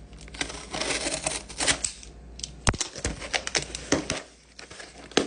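A shipping package being opened by hand: irregular clicks, taps and rustling of the packaging, with a sharp click about two and a half seconds in.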